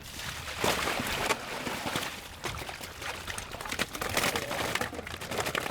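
Water splashing and pouring, a dense crackling rush that starts about half a second in and keeps going with uneven surges.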